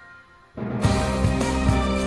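Background music: a track fades to a brief lull, then a new one starts about half a second in with a steady beat.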